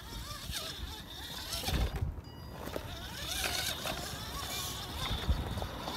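Redcat Everest-10 electric RC rock crawler whining up and down in pitch as it crawls slowly over rocks, with wind rumbling on the microphone and surging twice.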